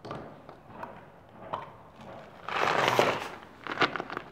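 Handling noises: a noisy scrape about two and a half seconds in, then a quick run of sharp clicks near the end as the metal can of PVC pipe cement is opened and its cap-mounted dauber lifted out.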